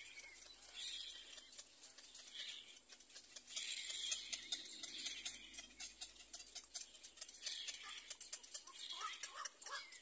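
Cormorant chicks in the nest giving high, raspy begging calls in repeated bursts, with many small clicks running through them. A few short pitched squeaks come near the end.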